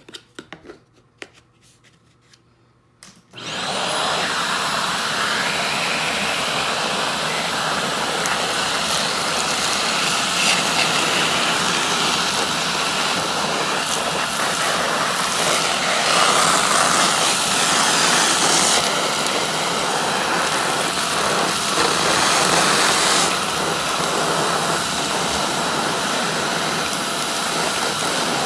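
A few soft handling clicks, then about three seconds in a Shark Navigator upright vacuum cleaner switches on with a short rising whine and runs steadily, its hose and wand sucking debris out of a cloth vacuum bag. The sound changes a little as the wand is worked through the bag.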